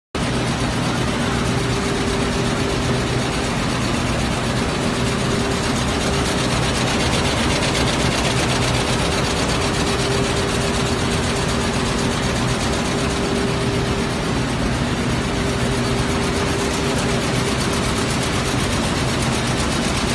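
Steady din of running factory machinery, a multi-needle quilting machine at work among it, over a low steady hum.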